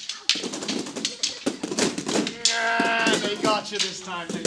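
Kali sticks clacking together in quick succession during a fast partner striking drill, with children yelling and cheering. A long, held shout comes a little past halfway, followed by more shouting.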